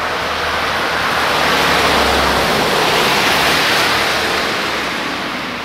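Paintball smoke grenade hissing as it burns, an even, loud rushing hiss that swells a little past the middle and then eases slightly.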